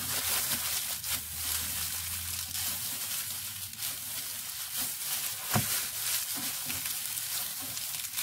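Aluminium foil crinkling and crackling as it is rolled and pressed tightly around a meat roll, with a steady papery rustle and frequent sharp crackles.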